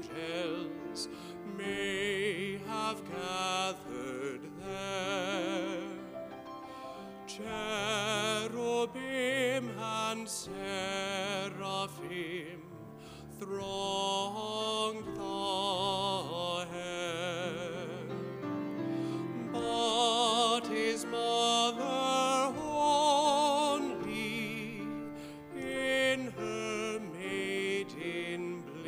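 A solo voice singing long, sustained notes with a wide vibrato over a steady, held accompaniment.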